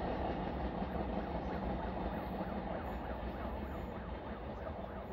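Train running past on the tracks, its rumble slowly fading as it moves away. From about a second and a half in, a faint high tone rises and falls about three times a second behind it.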